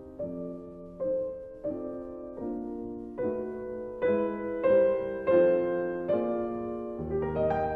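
Slow background piano music, chords struck about once every three-quarters of a second. It grows louder and higher about halfway through, and deeper bass notes come in near the end.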